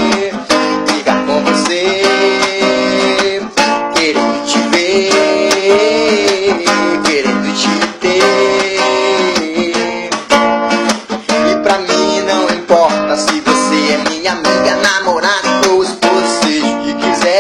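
Acoustic guitar strummed in a steady rhythm, chords ringing between strokes.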